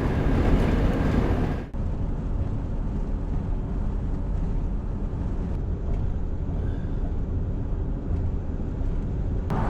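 Steady road and engine noise inside a camper van cruising on a highway, towing a trailer. There is a sudden brief dip about two seconds in, after which the same drive noise carries on slightly duller.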